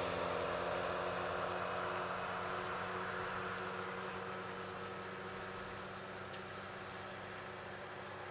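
John Deere 8420 tractor's six-cylinder diesel engine running at a steady pitch, fading gradually as it moves away.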